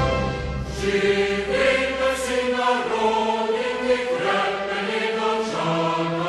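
Slow choral music: voices holding long notes that step from one chord to the next.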